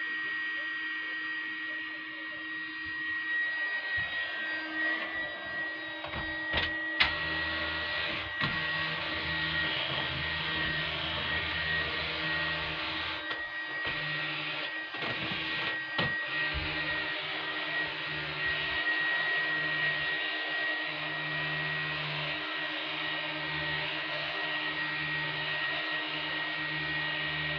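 Household vacuum cleaner running steadily, with a high motor whine over a constant rushing noise and a few sharp knocks as it is pushed about.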